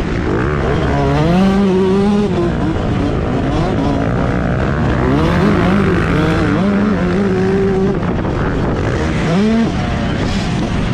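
Motocross bike engine under hard riding, its revs climbing and dropping again and again with throttle and gear changes, with a quick sharp rev near the end. Wind and track noise run underneath.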